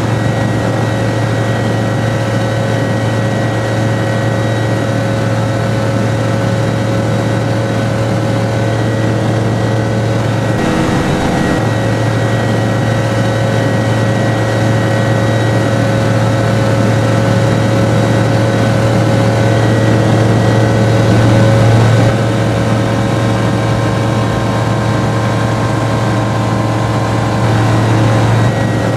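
Zenith CH-701 STOL's Rotax 912 flat-four engine and propeller running steadily in flight, a continuous drone. The engine note swells and then drops suddenly about two-thirds of the way through, and swells again near the end.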